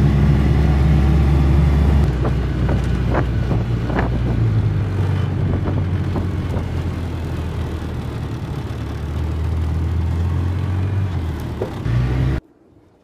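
Engine of a Polaris off-road utility vehicle running as it drives, heard from inside the open cab, with a few sharp knocks in the first few seconds. The sound cuts off suddenly near the end.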